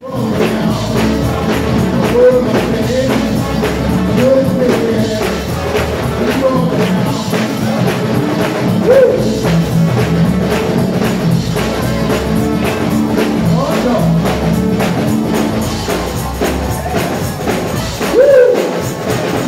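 Live gospel music with a congregation singing along and hand clapping on a steady beat.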